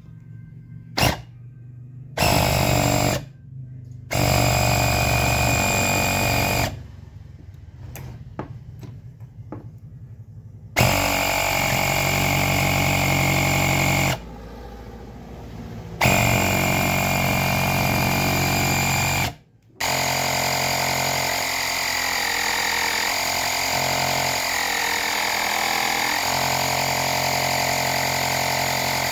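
12-volt mini electric air compressor running in short bursts, starting and stopping several times as its power is connected and broken, then running steadily for the last nine seconds or so.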